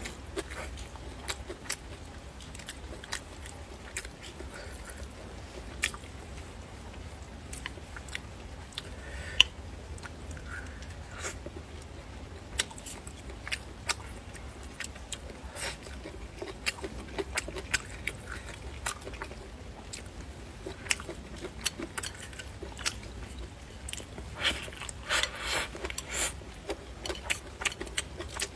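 Close-up chewing and biting of spicy pork skin and rice, with scattered sharp clicks and smacks. A steady low rumble runs underneath.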